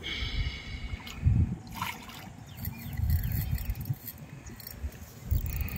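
Water splashing as a hooked rohu carp thrashes at the surface, with repeated low rumbling thumps on the microphone.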